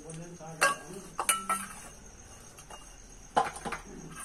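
Stainless-steel dishes and a spoon clinking together several times, short ringing knocks at about half a second, a second and a half, and three and a half seconds in. Crickets chirp steadily behind.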